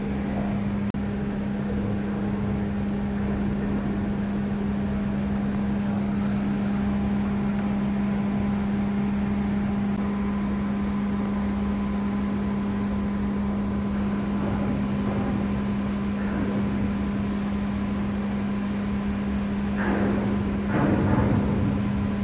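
Steady low machinery hum with a fan-like hiss, unbroken throughout, with a brief louder burst of sound about twenty seconds in.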